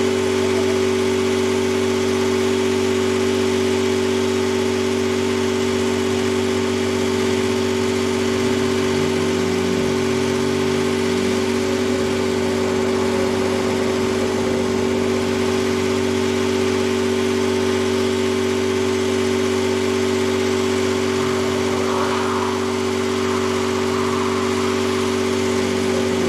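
Mercedes-AMG One's turbocharged 1.6-litre V6 idling steadily at a standstill, an even, unchanging drone.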